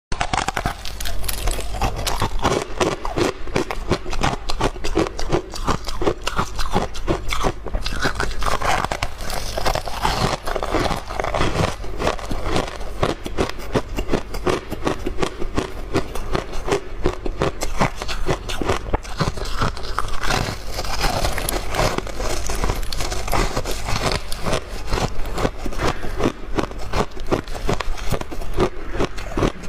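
Ice being bitten and chewed close to the microphone: a continuous run of crisp crunches and crackles.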